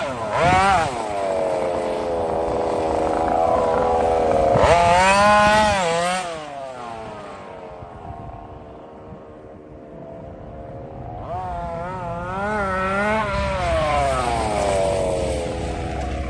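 Petrol RC car's small two-stroke engine revving up and down again and again, its pitch repeatedly rising and falling. The engine sound fades for a few seconds in the middle, then comes back louder.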